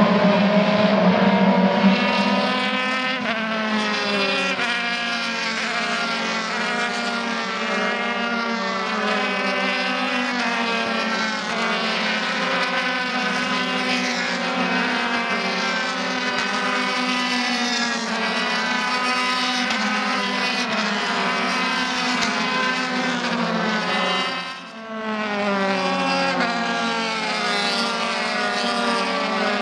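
Formula Renault 2.0 race car engine running hard, its revs climbing and dropping again every second or two as it goes through the gears. About 25 seconds in it dips briefly before picking up again.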